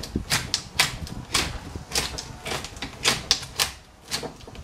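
Long-handled hedge shears snipping through a gar's hard, armour-scaled skin: a quick, irregular series of about a dozen sharp snips.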